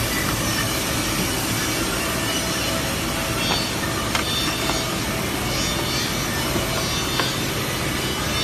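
An industrial drawer sanding and cutting machine running steadily with a dense, even mechanical noise, with a few faint sharp ticks partway through.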